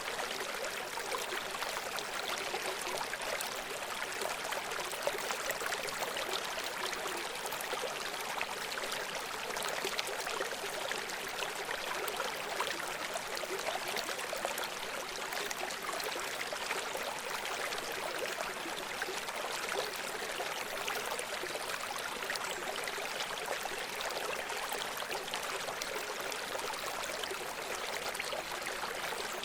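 A small river running over rocks, a steady rush of water with fine splashing and gurgling.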